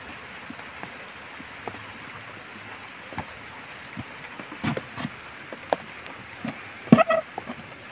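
Hands scraping and pulling at loose soil and roots in a dug hole: scattered short scrapes and knocks over a steady hiss, with a louder brief cluster of scraping sounds about seven seconds in.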